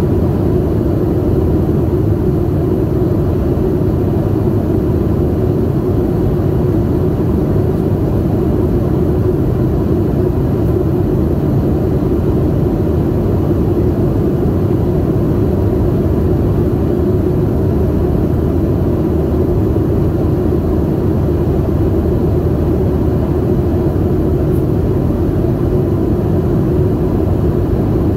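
Steady, low rumble of jet engine and airflow noise heard inside the cabin of a Boeing 737-800 in flight, from its CFM56-7B turbofans.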